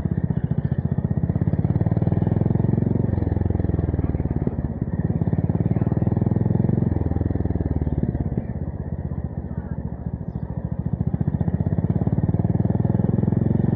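Honda GB350S single-cylinder engine being ridden through a MILLER Spitfire slip-on exhaust, a fast, even train of exhaust pulses. The throttle eases off about eight seconds in, and the engine pulls hard again a few seconds later.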